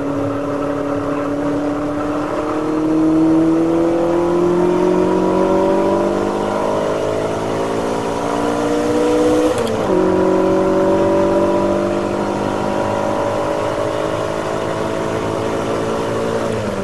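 Classic Ferrari V8 racing engine under full acceleration, heard from inside the car with wind and road noise. The pitch climbs steadily through third gear, drops sharply at an upshift to fourth about ten seconds in, climbs again, and drops once more at a shift to fifth at the very end.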